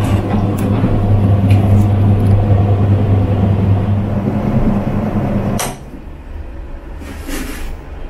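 Spin-dryer motor of a Mito mini twin-tub washing machine running with a steady hum and rumble, then cutting off suddenly with a click about five and a half seconds in as the spin cycle ends.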